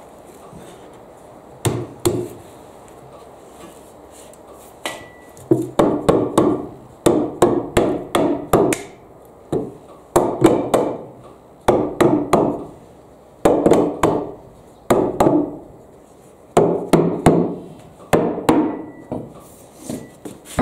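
Short-handled sledgehammer striking the boards of a wooden lumber frame. Two single knocks come first, then from about five seconds in the blows come in quick bursts of several strikes each, with short pauses between, each blow ringing briefly in the wood.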